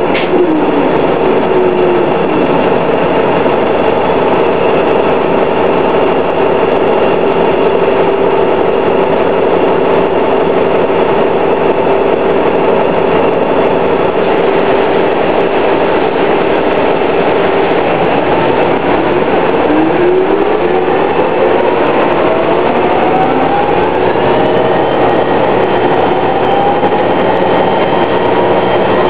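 The Detroit Diesel Series 50 four-cylinder diesel and Allison B400R transmission of a 2000 New Flyer D60 articulated bus, running with a steady drivetrain whine. From about 19 seconds in, the whine rises in pitch as the bus speeds up.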